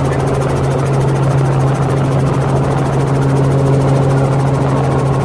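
Robinson helicopter in flight, heard from inside the cabin: a loud, steady low drone of engine and rotors with a fast, even beat running through it.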